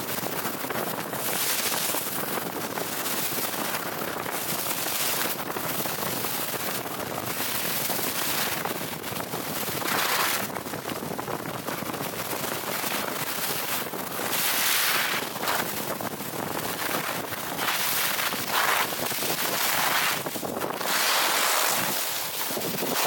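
Skis sliding and scraping over packed snow, mixed with wind rushing over the microphone at skiing speed; the rushing noise swells and eases every few seconds.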